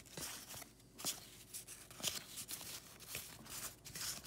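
1986 Topps cardboard baseball cards being flipped one at a time off a stack held in the hands, a series of short flicks and scrapes of card against card.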